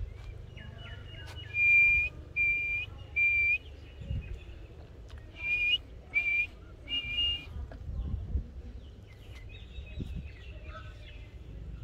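Whistling: two sets of three short notes, each held at one steady pitch for under half a second, the second set about two seconds after the first. A low rumble runs underneath, with fainter higher chirps near the end.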